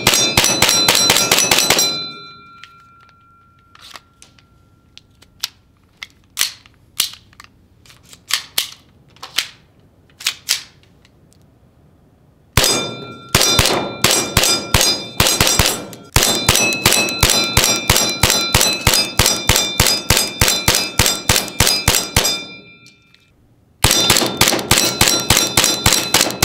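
ARMY Armament TTI Combat Master, a Hi-Capa-based gas blowback airsoft pistol, firing. Each shot is a sharp metallic clack of the cycling slide with a short ring. It opens with a quick burst, then a few spaced single shots, then a long rapid string from about halfway in, and another rapid string near the end.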